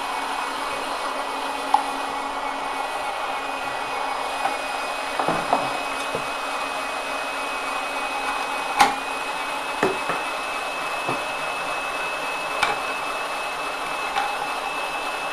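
Presto SaladShooter electric slicer-shredder's small motor running steadily with a high whine, while the item fed into it rattles and knocks a few times without being cut.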